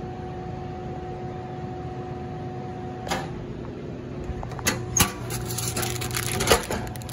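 Automatic Products Studio 2D vending machine vending: the spiral motor hums steadily for about three seconds and stops with a thud as the item drops. It is followed by sharp clunks and rattling at the delivery bin as the item is taken out, loudest near the end.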